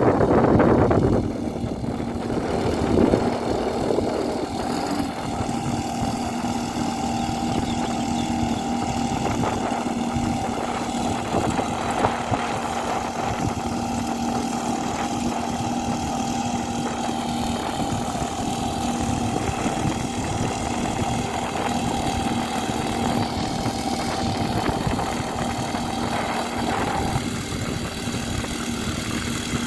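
Two-stroke 52 cc petrol engine of a floating irrigation pump running at a steady speed, with a constant pitch; louder for the first second or so, then even.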